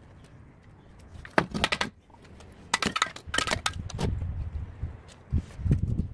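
Steel mason's trowel clinking and scraping against hollow clay bricks and mortar while laying a brick course: several quick runs of sharp taps, then duller knocks near the end.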